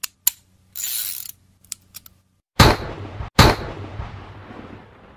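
Intro sound effects: a few sharp mechanical clicks and a short hiss, then two loud bangs under a second apart, the second one trailing off slowly.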